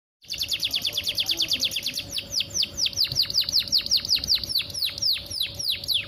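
Young domestic canary singing a long trill of quick down-slurred notes: very rapid at first, then slowing to about five notes a second from about two seconds in.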